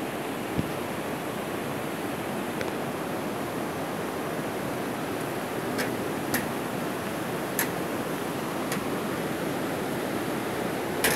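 Steady rush of fast-flowing water in a channel running beneath metal grates. A handful of short, sharp clicks sound over it, most between six and nine seconds in and one near the end.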